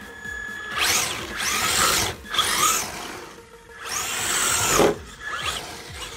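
Traxxas Ford Mustang GT RC car's electric motor and drivetrain whining in several bursts of throttle, each rising and then falling in pitch, over tyre noise on coarse asphalt.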